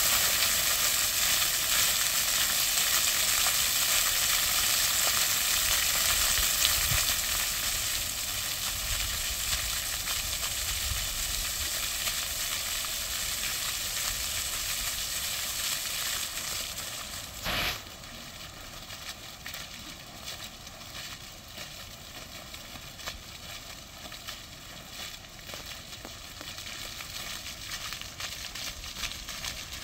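Floor fountain's water jets splashing onto paving stones, a steady hiss of spray that fades as the jets shrink. It drops off sharply about two-thirds of the way through, leaving a softer splashing from the single remaining jet.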